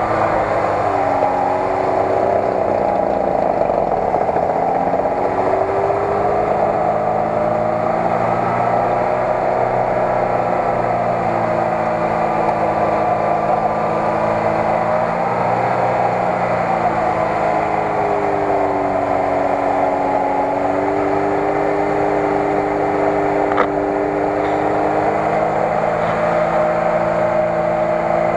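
Lada Niva's engine working hard under load in deep mud, its revs slowly rising and falling without let-up.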